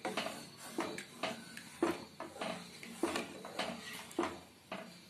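Wooden spatula stirring thin, watery curry gravy in a nonstick pan, one short stroke sound about twice a second as the added water is mixed in.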